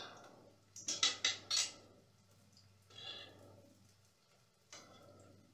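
A utensil knocking against a metal cooking pot about four times in quick succession about a second in, then softer scrapes twice, as conch fritters are turned in the frying oil.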